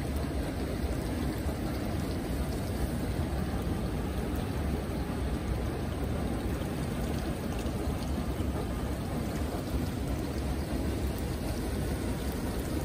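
Steady rush of running water, even throughout, with a low rumble underneath.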